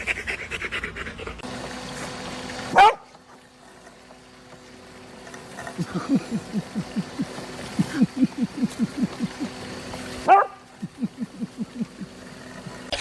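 A dog making a run of short, low, rhythmic vocal sounds, about four a second, in the middle and again near the end, with quick panting at the start. A brief, loud rising sound cuts in about three seconds in and again about ten seconds in.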